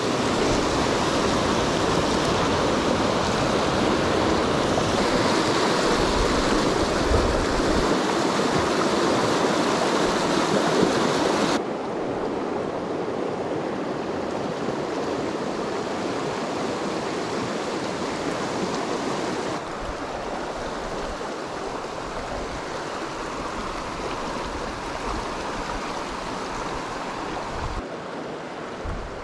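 Mountain stream running high and fast over rocks, a steady rush of white water from high spring flows. The rush drops down a step in loudness about a third of the way in and again about two-thirds in, where it turns to a gentler flow.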